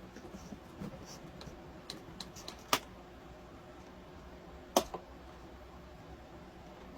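Scattered light clicks and taps of hard objects being handled, with two sharp, louder clicks about two seconds apart, over a faint low hum.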